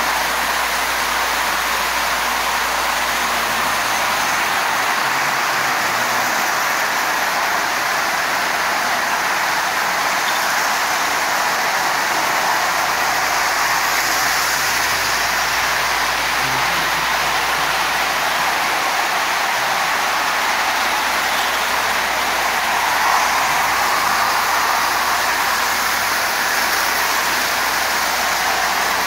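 Several Marx toy trains running at once on three loops of three-rail metal track, making a steady, dense rattle of wheels and motors on the rails.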